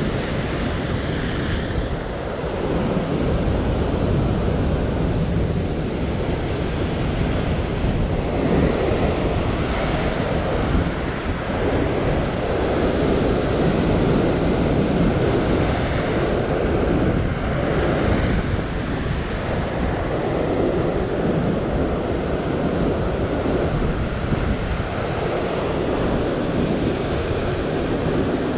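Sea surf breaking and washing over a coastal rock shelf in a continuous loud rush that swells and eases, with wind buffeting the microphone.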